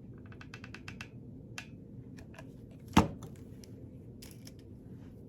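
Small hard objects being handled on a work surface: a quick run of small clicks, a few scattered clicks, then one sharp knock about three seconds in.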